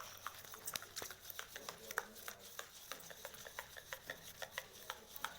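Sticky homemade slime being mixed by hand with activator, making irregular soft clicks and wet pops several times a second.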